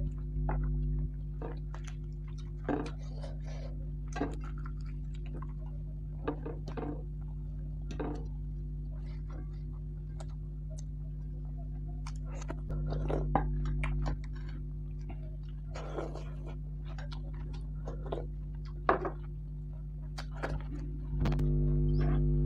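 Close-miked eating sounds from a person chewing, with scattered mouth clicks and smacks, over a steady low hum.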